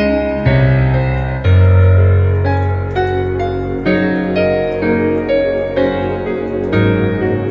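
Slow piano music with deep bass notes, a new chord struck every second or so.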